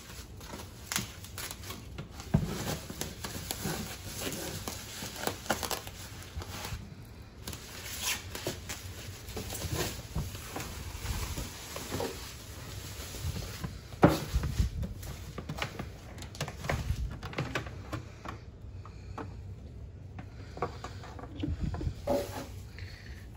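Packing wrap rustling and crinkling as it is pulled off a countertop ice maker, mixed with irregular clicks and knocks of handling the plastic machine, its lid and ice basket; one sharper knock comes about halfway through.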